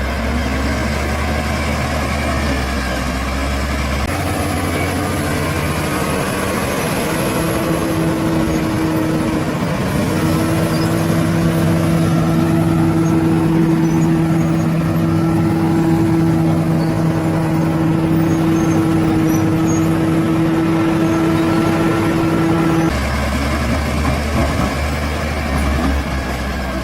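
Bulldozer's heavy diesel engine running steadily at working speed. A steady pitched drone sets in partway through, and the sound changes abruptly back to a lower rumble near the end.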